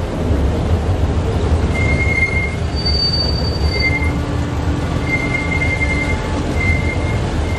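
Toy train running on its small-gauge track with a steady low rumble, its wheels squealing high-pitched several times, each briefly, as it rounds a curve.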